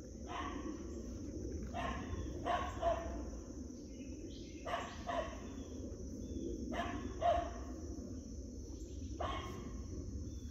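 Dog barking, about nine short barks a second or two apart, some coming in quick pairs.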